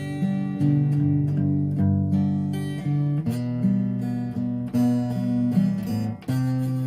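Acoustic guitar playing slow, calm plucked and strummed chords and notes, relaxation music.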